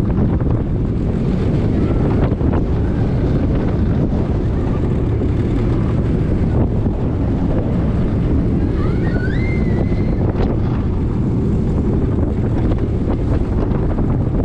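Wind rushing over the microphone on board a moving Vekoma roller coaster train, with the steady rumble of the train running along the track. A few brief high, gliding squeals sound about nine seconds in.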